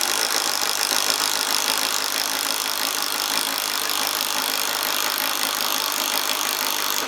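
Bosch 12-volt cordless impact driver running flat out with its hammer mechanism rattling as it bores with a spade bit. It runs steadily for about seven seconds and stops abruptly at the end, having got through without trouble.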